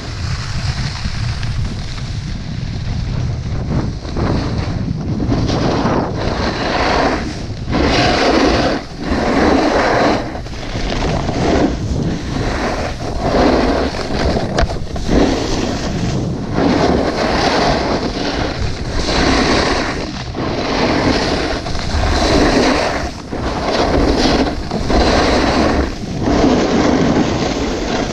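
Snowboard edges scraping over tracked piste snow as the rider links turns, a swell of scraping roughly every one and a half to two seconds. Under it, steady wind buffets the camera microphone.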